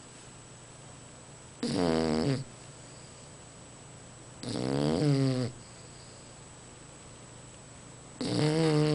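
Bulldog snoring in its sleep: three snores about three seconds apart, each lasting about a second.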